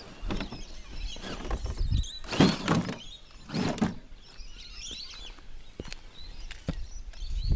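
A 1/10 scale RC rock crawler scraping and clattering against the rock as it tips over onto its side, with two rough bursts of noise between two and four seconds in. Birds chirp faintly in the background.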